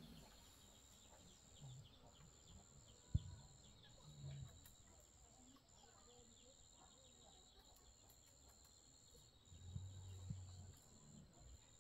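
Near silence: faint ambient tone with a steady high-pitched whine, a sharp click about three seconds in and a few soft low knocks.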